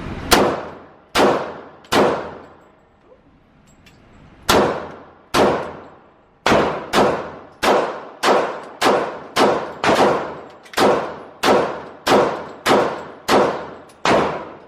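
A string of about eighteen gunshots at a shooting range, each with a short echoing tail. Three shots come in quick succession, then after a pause two more, then a steady run of roughly two shots a second.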